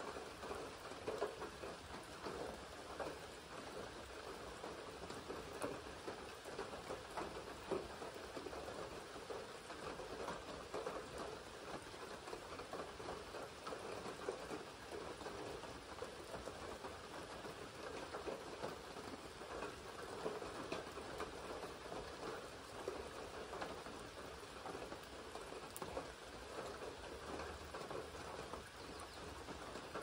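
Steady rain falling on a lake and the willows and grass around it: an even hiss with a dense patter of many small drops.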